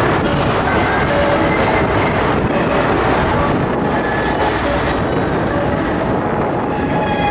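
Train running along the tracks through a station: a loud steady rumble of wheels on rails. Near the end a steady tone with several pitches sets in over it.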